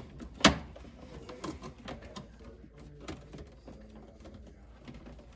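Handling noise from work on a refrigerator's plastic water filter housing: one sharp knock about half a second in, then lighter clicks and taps.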